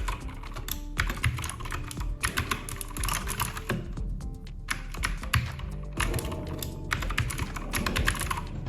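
Typing on a Keychron K2 mechanical keyboard with clicky Gateron Blue switches: a quick, uneven run of key clicks with short pauses, over background music.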